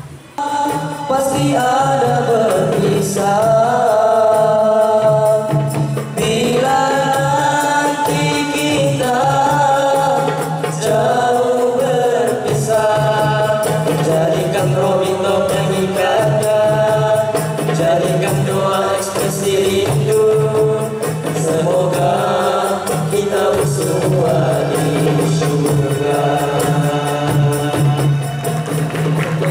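A group of boys singing together into microphones, amplified through the hall's sound system, with hand-drum accompaniment.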